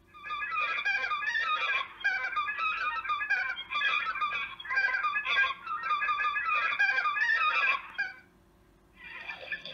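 Recorded honking of a flock of wild geese, many calls overlapping, played back through the speaker of an electronic game caller. The recording stops about eight seconds in, and after a second's pause another goose call track starts.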